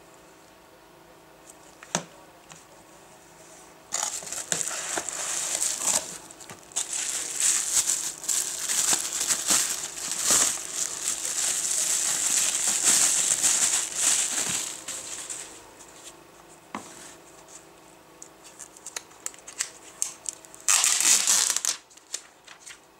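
Plastic bubble wrap crinkling and rustling as it is handled and unwrapped, in long stretches, with a short loud burst near the end. A single sharp click about two seconds in.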